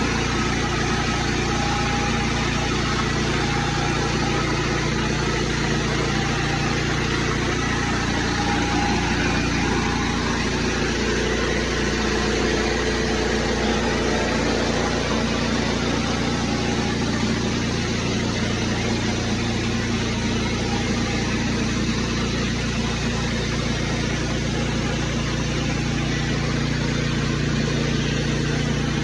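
Petrol engine of a pressure washer running steadily under load, with a constant rushing hiss over it.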